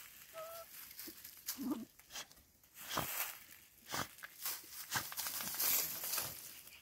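Dogs digging and pawing at soil and dry bamboo leaves: irregular scratching and rustling strokes, with a brief high squeak about half a second in.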